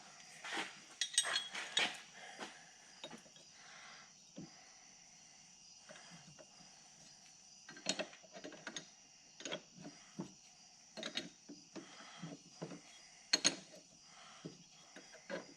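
Scattered metal clinks and taps of a wrench on brass pressure-washer fittings as they are tightened, over a faint steady high-pitched hiss.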